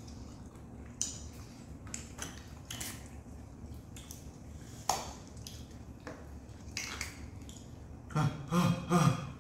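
Scattered light clicks and taps of wooden chopsticks against small plastic sauce cups while eating, with a person's voice briefly near the end.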